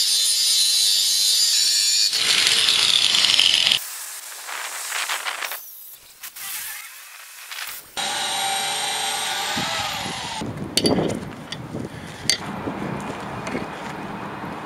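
Angle grinder cutting steel rebar: a loud, steady high whine that grows louder and harsher about two seconds in, then cuts off near four seconds. Later a second power tool whines briefly and winds down, followed by scattered sharp knocks.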